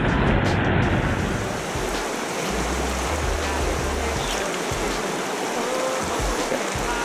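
Shallow, rocky freestone river rushing over a riffle in a steady hiss, with soundtrack music underneath, its bass notes stepping in the background.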